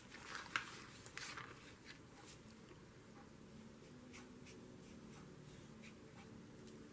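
Faint paper-craft handling sounds: a short rustle and scrape as a painted cardboard frame is shifted across paper in the first second or so, then light, dry strokes and soft ticks of a fan brush dabbing acrylic paint onto the cardboard.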